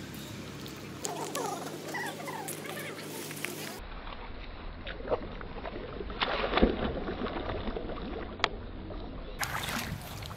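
Long-tailed macaques splashing through shallow, muddy pond water, loudest about six to seven seconds in.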